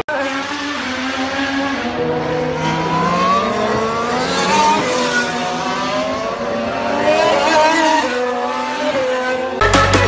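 Formula 1 cars' 1.6-litre turbocharged V6 engines passing through a corner one after another, their engine notes rising and falling in pitch. Electronic music cuts in abruptly at the very end.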